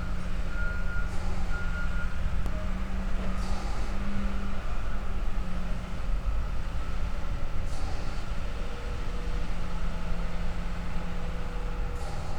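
Heavy diesel log-handling machinery running with a steady low engine drone. Intermittent beeping sounds in the first two seconds, and a few short hisses come and go.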